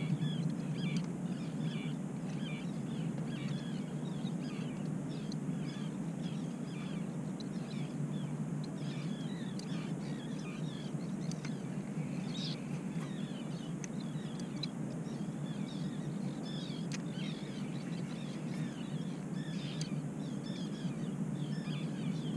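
A flock of seabirds calling over open water, many short high calls repeated throughout, over a steady low rumble.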